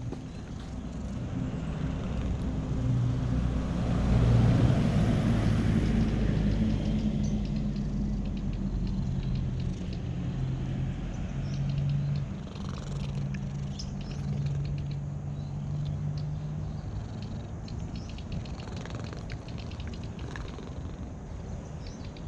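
Cat purring, a low steady hum, while it is stroked on the head and neck. A few seconds in, a louder rushing noise swells and fades over it.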